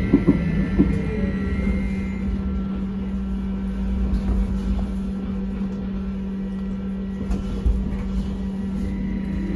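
Cabin noise of a Sinara-6254 trolleybus on the move: a steady electrical hum over low rumble. A high whine fades out about two seconds in, and there are a few short knocks near the start and again late on.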